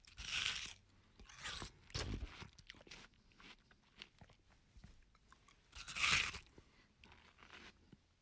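A person biting into crunchy food and chewing it: two loud crunching bites, one about half a second in and one about six seconds in, with quieter crunchy chewing between and after them.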